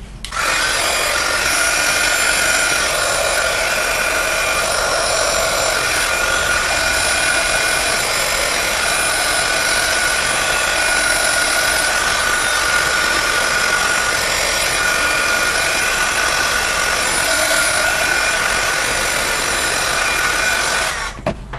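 Craft heat gun running, a steady blowing hiss with a steady high whine, as it dries ink mist on a fabric flower. It switches on about half a second in and cuts off shortly before the end.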